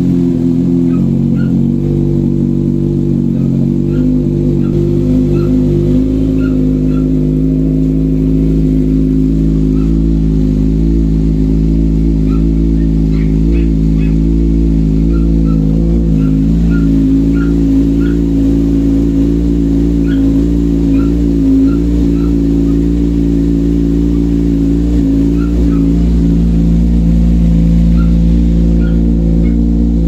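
Kawasaki Z1000's inline-four engine idling steadily through an Orion slip-on muffler fitted to the stock header, with the catalytic converter cut out of the pipe.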